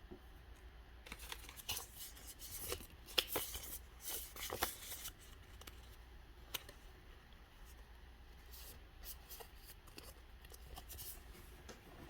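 Pokémon trading cards and their plastic sleeves being handled: a run of short rustling scrapes and slides from about a second in to about five seconds in, then a few scattered light clicks.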